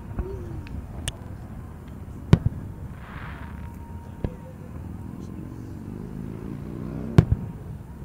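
Aerial firework shells bursting with sharp booms at irregular intervals. The two loudest come about two seconds in and near the end, with smaller pops between. The booms echo back off the surrounding cliff sides.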